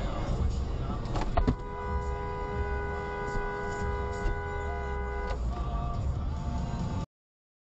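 A car horn held in one long two-note blast of nearly four seconds, starting about one and a half seconds in, over the low rumble of the car driving. Just before the horn, a couple of sharp knocks.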